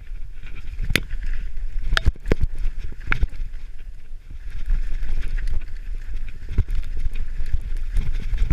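Mountain bike riding down a rough trail: a steady low rumble from the tyres, with sharp knocks and rattles as the bike hits bumps, several of them close together around one to three seconds in.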